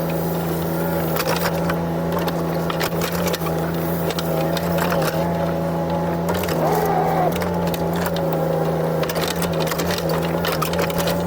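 JCB 8026 mini excavator working: its diesel engine running steadily under load, with hydraulic whine that rises and falls about two-thirds of the way through, and scattered knocks and clanks from the bucket and machine.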